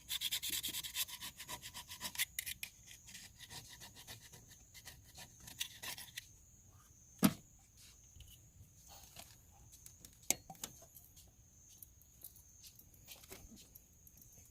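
Rapid, repeated scraping strokes for about six seconds, then one sharp knock and a few lighter clicks.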